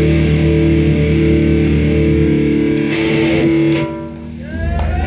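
Live heavy metal band's distorted electric guitars and bass holding a long chord that cuts off about four seconds in, followed by a few bending guitar notes.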